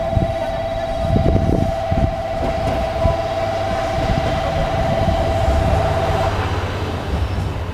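JR Kyushu Kiha 220 diesel railcar pulling into the platform, its diesel engine running and its wheels knocking over rail joints a few times early on. A steady warbling tone sounds over it and cuts off about six seconds in.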